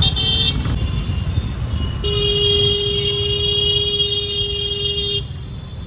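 Dense city traffic with a steady low rumble of engines and road noise. A vehicle horn gives a short honk at the start, then a long steady blast of about three seconds from about two seconds in.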